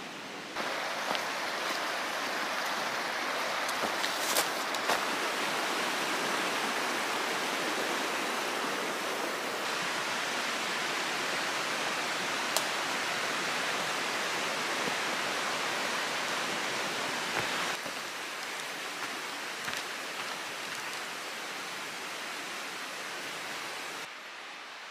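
Steady rushing of a stream or creek, its loudness jumping suddenly up or down several times, with a few sharp clicks about four seconds in and once near the middle.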